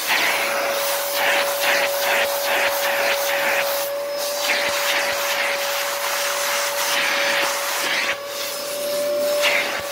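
Dyson DC33 vacuum running, its motor giving a steady whine under the rush of suction from a hand tool on the hose as it is swept over leather upholstery. The airflow hiss swells and fades with each stroke and dips twice, about four seconds in and again near eight seconds.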